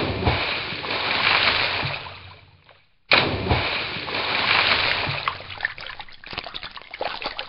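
Two water splashes as waste barrels are dumped into a pond. The first starts abruptly and fades out after about two and a half seconds. The second starts abruptly about three seconds in and trails off into scattered drips.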